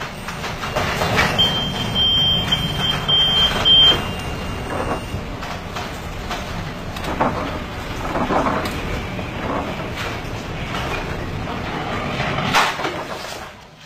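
Storm waves breaking over a container ship's bow and deck, a steady rushing of wind and water with several louder surges. A high beeping tone sounds for about two and a half seconds, starting about a second and a half in.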